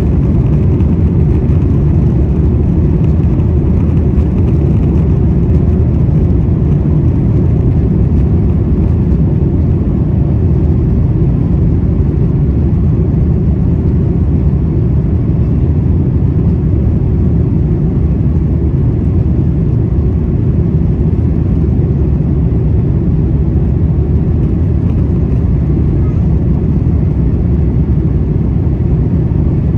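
Cabin noise of an Airbus A350-1000 taxiing: a steady low rumble from its Rolls-Royce Trent XWB engines at taxi thrust, unchanging throughout.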